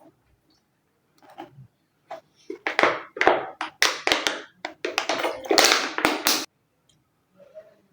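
Close-miked eating sounds from biting and chewing a chicken shami burger: a quick run of noisy mouth sounds with sharp clicks from about two to six and a half seconds in.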